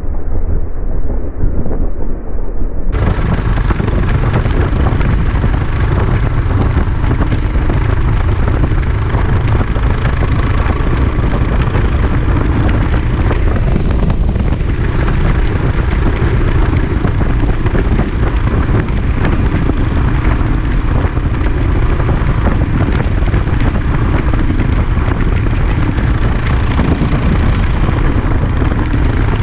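Wind rushing over the microphone of a camera on a dual-sport motorcycle moving at road speed, with the bike's engine running underneath. For about the first three seconds the sound is dull and muffled, then it opens up to full, steady wind noise.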